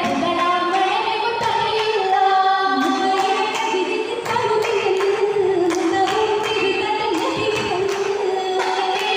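A group of girls singing an Oppana song in unison into microphones, one wavering melodic line without instruments. Steady hand claps, about two a second, keep the beat under the singing.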